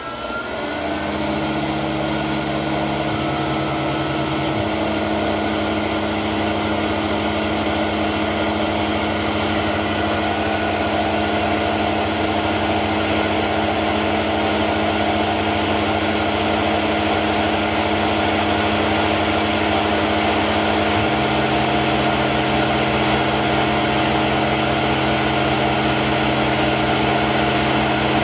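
Milling machine spindle running steadily while a hand-ground T-type cutter mills a slot in a plastic part, a steady machine hum with several fixed tones. The low part of the sound shifts slightly about four seconds in and again about twenty seconds in.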